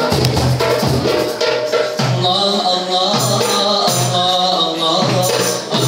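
Live nasyid performance: a group of voices singing a song in harmony over drum beats about once a second, with a tambourine jingling.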